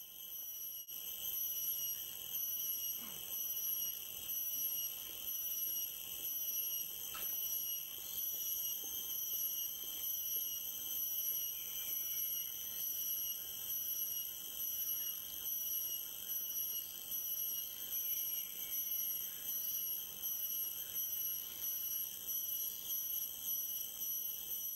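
Steady, shrill chorus of insects, several high tones sounding at once with a slight pulsing.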